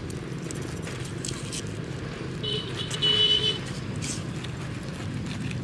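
A small knife cutting into the flesh of a peeled pineapple in a few short crackling clicks, over a steady low rumble. A brief high-pitched whine comes about halfway through and is the loudest sound.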